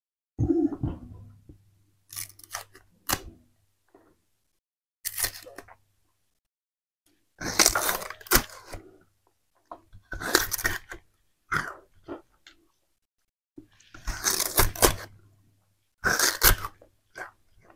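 Purple sugarcane being bitten, its hard rind torn off in strips with the teeth and the fibrous cane crunched and chewed, in short crackling bursts every second or two.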